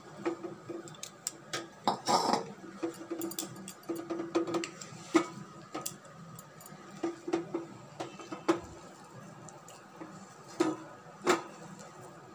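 Hand mixing a crumbly batter of grated palm pulp, semolina and flour in a steel bowl: irregular clicks and knocks of fingers against the metal bowl.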